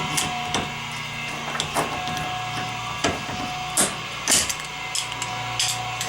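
Irregular metallic clicks and knocks, about ten spread over several seconds, from a dirt bike chain and a C-clamp being handled and clamped down.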